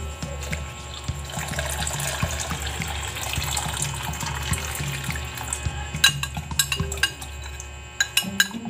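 Cornstarch-and-water mixture poured from a bowl into a pot of boiling milk, a steady liquid pour, followed from about six seconds in by a run of sharp clinks and taps as the last of the mixture is scraped out of the bowl.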